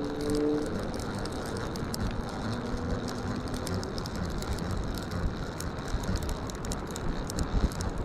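Penn Squidder 140 conventional reel being cranked to wind in a small hooked coalfish, its gears and ratchet giving a rapid run of fine clicks. A steady low rumble sits underneath.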